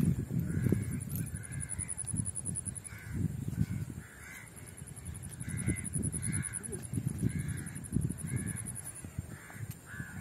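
Crows cawing again and again, over louder irregular low rustling and knocking noise. A high, fast-pulsing buzz runs behind them and stops near the end.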